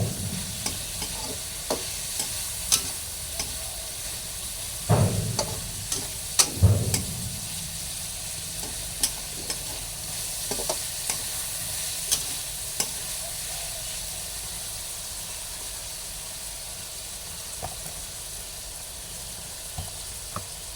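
A vegetable and fried-fish stir-fry sizzling steadily in a pan as it is stirred, with a spatula clicking and scraping against the pan. It knocks more loudly twice, about five and six and a half seconds in.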